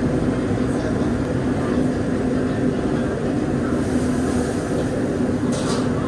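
Steady background din of a busy open-air food stall: a constant low mechanical hum under indistinct noise, with no distinct events.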